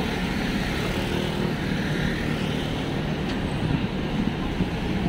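Busy city street: a steady wash of road traffic, with vehicle engines running by.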